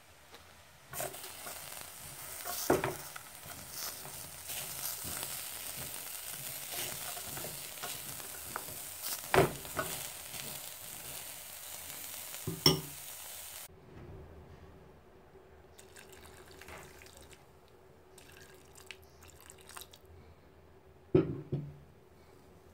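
Rice and diced carrots frying in a metal pot, a steady sizzle while being stirred, with a spoon knocking against the pot three times. The sizzle cuts off suddenly about two-thirds through, leaving quieter stirring and scraping and one more knock near the end.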